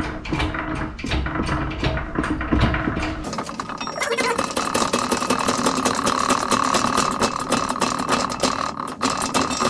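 A 20-ton hydraulic shop press being hand-pumped, with regular clicking strokes. About three seconds in, background music with a fast steady beat comes in over it.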